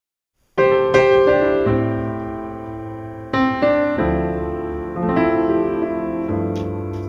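Piano music starting suddenly about half a second in, with notes and chords struck and left to fade, re-struck every second or so.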